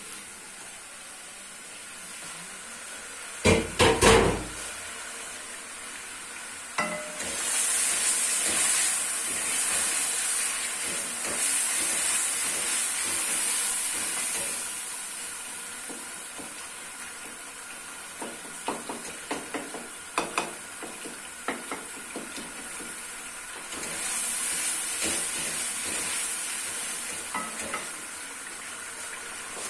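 Tomatoes frying in oil in a cooking pot, with a sizzle that swells loud twice, and a spoon stirring and tapping against the pot in runs of sharp ticks. A few loud metal clanks sound about four seconds in.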